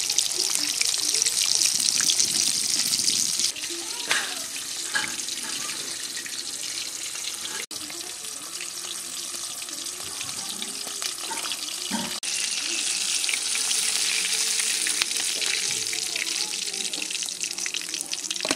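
Batter-coated chicken pieces deep-frying in hot oil in a karai: a steady crackling sizzle of bubbling oil. It is louder at the start and again from about twelve seconds in, softer in between.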